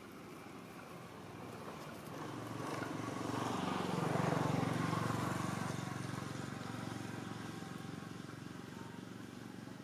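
A motor vehicle engine passing by: it grows louder over a few seconds, peaks about four to five seconds in, then slowly fades away.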